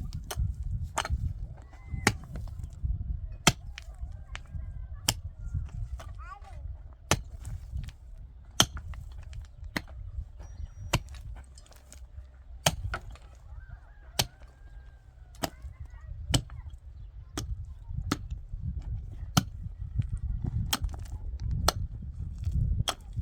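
Hammer blows striking again and again in an irregular rhythm of roughly one a second, over a constant low rumble. Faint honking calls of domestic fowl rise and fall behind them now and then.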